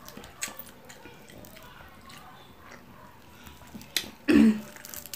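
Faint eating sounds: small clicks and smacks of fingers picking at fried tilapia and of chewing. A little over four seconds in, one of the eaters makes a short, loud voiced sound.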